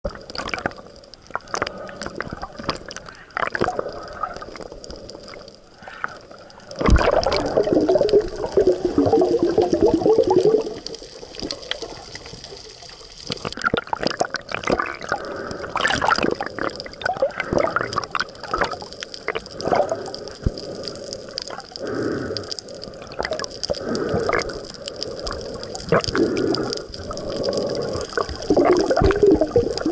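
Underwater sound picked up by a submerged camera while snorkeling: muffled water movement with scattered sharp clicks and pops. Louder bursts of bubbling come about seven seconds in and again near the end.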